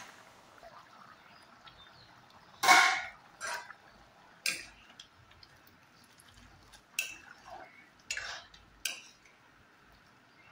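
A metal spatula knocking and scraping against a metal cooking pan of curry: about half a dozen separate clinks spread over several seconds, the loudest about two and a half seconds in.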